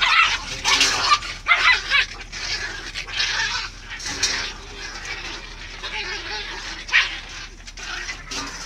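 Puppies play-fighting, with a run of short, sharp barks and yips that is busiest in the first two seconds or so, then quieter scuffling and yapping, with one more sharp bark about seven seconds in.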